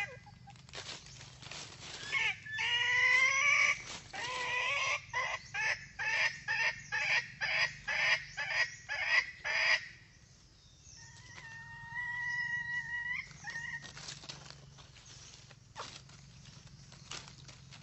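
Red junglefowl calling: a wavering pitched call, then a run of about a dozen evenly spaced loud clucks, then a steady held note a little after the middle.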